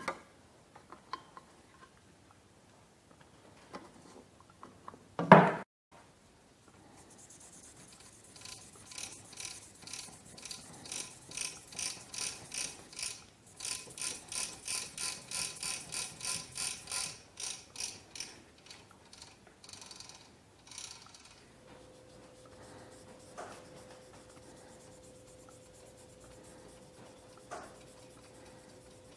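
A hand-held pad rubbed back and forth along a cocobolo pen blank on a wood lathe, applying finish with an even hissing rasp at about two strokes a second. A loud knock comes about five seconds in, and a steady hum sets in near the end.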